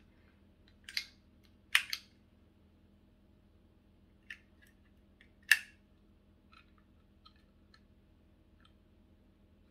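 Sharp plastic clicks and clacks from a handheld label maker being squeezed and pressed to release its tape cartridge. Three loud clacks come in the first two seconds and another about five and a half seconds in, with lighter ticks between and after.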